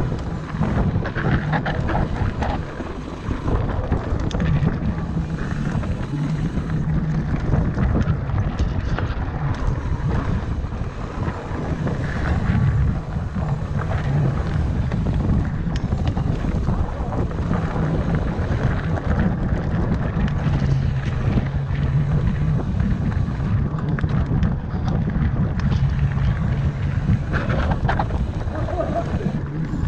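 Mountain bike riding fast down a dirt singletrack: wind buffeting the microphone over the rush and rattle of the tyres and bike, with a low buzz that comes and goes.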